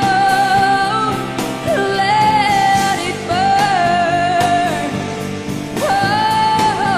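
A female singer belting held, sliding notes in a live pop-rock ballad, with band accompaniment and a few brief breaks between phrases.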